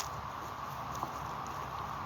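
Steady background hum with two light clicks or knocks, one at the start and one about a second in.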